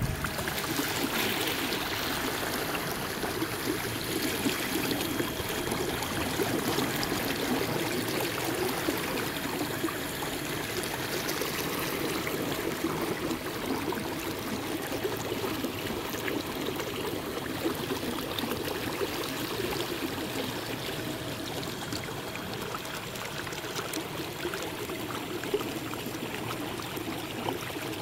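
Steady rushing and trickling of water along a kayak's hull as the boat moves through the water.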